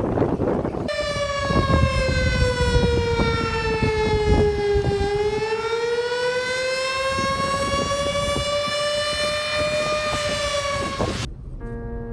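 Outdoor tornado warning siren wailing with a slow fall and rise in pitch, over wind noise; it starts abruptly about a second in and cuts off abruptly near the end.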